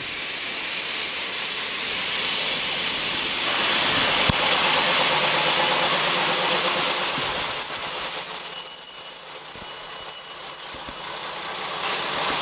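ČD class 810 diesel railbus running past at close range, its engine and wheels on the rails making a steady loud rumble that eases off about eight seconds in and picks up again near the end.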